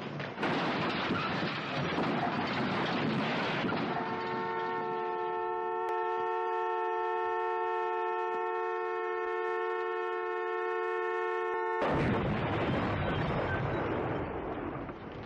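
A flipped car crashing down onto its wheels with a knock and a noisy clatter of impact. Then a wrecked car's horn, stuck on, sounds one steady chord for about eight seconds and cuts off suddenly as the car goes up in a loud whoosh of flame.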